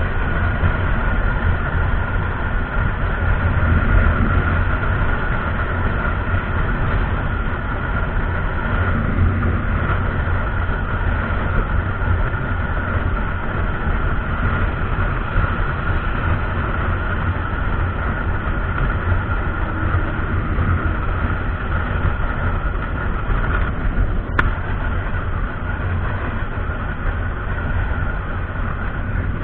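Riding a motorcycle at highway speed: a steady low rumble of wind and road noise buffeting the handlebar-mounted camera, with the engine running evenly and a faint steady whine above it. A single faint click sounds about 24 seconds in.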